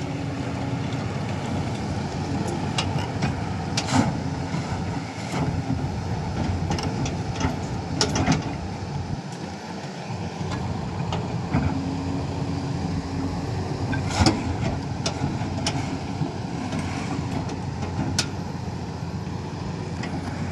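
Excavator's diesel engine running steadily, with a few sharp knocks now and then.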